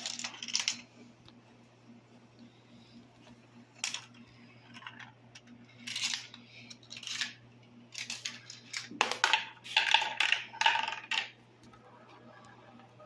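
Marbles rolling and clacking along the tracks of a marble run in rattling bursts, the longest and loudest run of clatter coming after about eight seconds, over a faint steady low hum.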